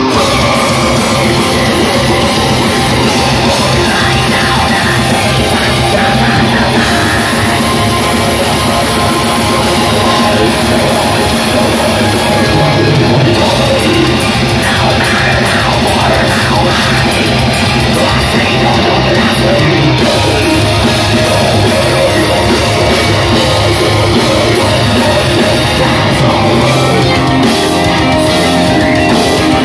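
A metal band playing live: electric guitars and a drum kit, loud and unbroken.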